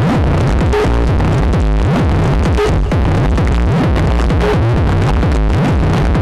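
Loud techno music with a steady bass-heavy beat, played over a parade truck's sound system.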